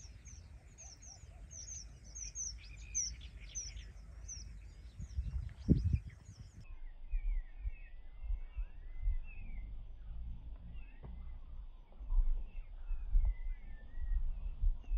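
Many birds chirping in quick, short calls, over a low rumble of wind on the microphone that gusts about six seconds in and again near the end.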